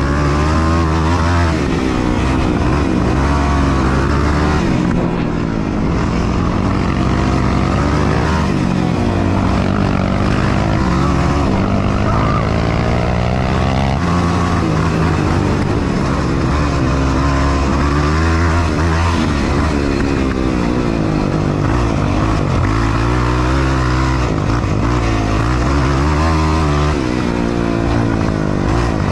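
Yamaha YFZ450R sport quad's single-cylinder four-stroke engine running under hard throttle on a dirt track, its pitch rising and falling again and again as the rider accelerates and backs off.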